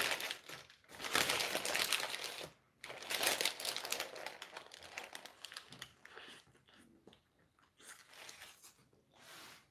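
A paper burger wrapper crinkling and rustling in the hands as it is peeled back and folded around the burger. The bursts come dense at first and thin out, growing fainter in the second half.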